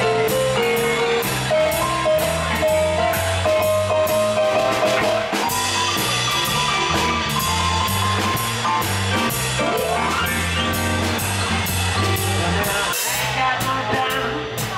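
Live electric blues band playing: a lead electric guitar line of held and bent notes over bass guitar and a drum kit with steady cymbal strokes. The lead slides up in pitch about ten seconds in, and the bass and drums stop for a moment about two seconds before the end.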